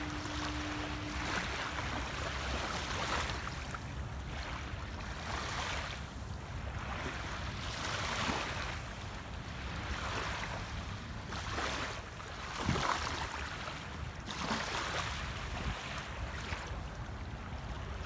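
Small waves lapping onto a sandy beach, a soft wash swelling and falling back every second or two, one a little louder about two-thirds of the way through. A steady low tone sounds for the first second or so.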